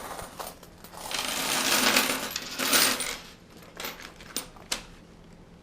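A pile of coins poured out and jingling together for a couple of seconds, then a few single coins clinking as they are sorted or set down.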